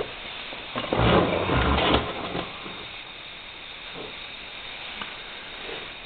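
Homemade alcohol jet stove burning under a steel cup of water with a faint steady hiss. About a second in, a loud rustling noise lasts roughly a second, and a few soft ticks follow later.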